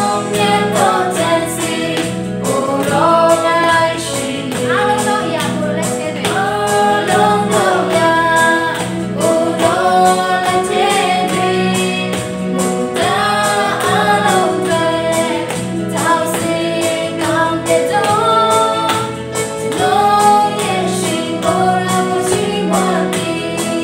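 Christian worship song: a female lead voice with others singing along over band accompaniment with a steady beat.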